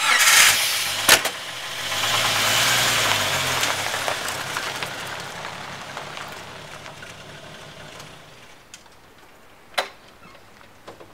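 Jeep engine running and revving as the vehicle pulls away, then fading off into the distance over several seconds. A sharp click comes about a second in, and a single knock near the end.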